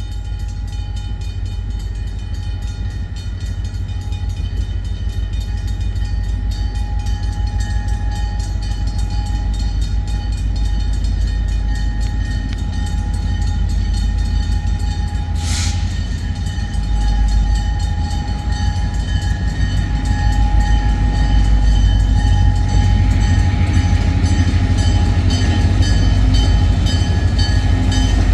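Freight train rolling past: a steady low rumble with a rapid, even clatter of wheels on rail, growing louder through the second half. A single sharp click stands out about halfway through.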